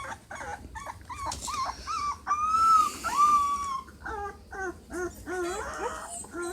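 A litter of puppies about ten days old whimpering and whining: a run of short high cries, two longer drawn-out whines from about two to four seconds in, then a quicker string of short cries near the end.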